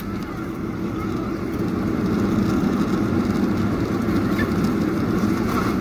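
Jet airliner's engines and rolling noise heard inside the cabin during the landing roll, with the wing spoilers deployed. A steady low rumble that grows louder over the first two seconds, then holds.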